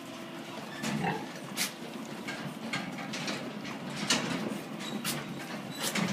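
Piglets grunting low a few times as they crowd and nose about, with sharp clicks and knocks scattered among the grunts.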